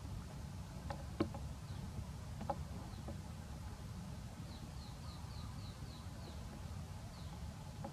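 A string of short, high chirping calls, each falling in pitch, about three a second for a couple of seconds midway, with a few scattered single chirps. Underneath is a steady low rumble, and a few sharp clicks fall in the first three seconds.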